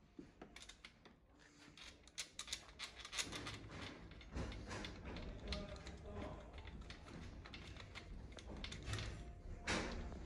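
Faint, irregular metal clicks and scrapes of gloved hands handling compression-tester fittings at a diesel engine's cylinder head, with a low rumble joining about four seconds in.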